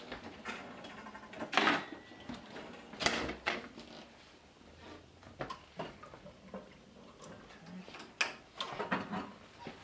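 Kitchen clatter: pots and utensils knocking and scraping on a gas stove and countertop, and a wooden spoon stirring in a metal saucepan. The knocks come at irregular intervals, and the sharpest are about one and a half and three seconds in.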